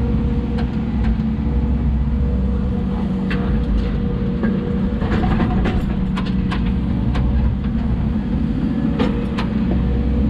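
Hidromek 140 excavator's diesel engine running steadily under work, heard from the cab. A run of sharp knocks and clanks comes in about a third of the way through and recurs near the end.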